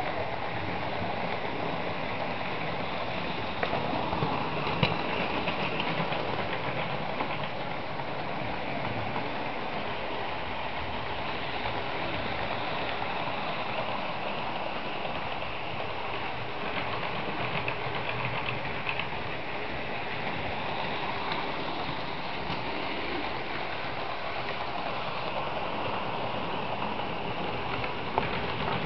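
Model train running on the track: a steady whirring rattle of its motor and wheels on the rails, with a few sharp clicks about four to five seconds in and again near the end.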